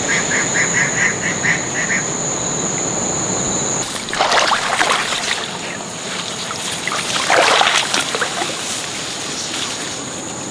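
Water splashing and sloshing as a man wades through a flooded ditch and pulls a net fish trap out, with two louder splashes about four and seven seconds in. A quick run of short, evenly spaced animal calls, about five a second, is heard during the first two seconds, and a steady high whine stops about four seconds in.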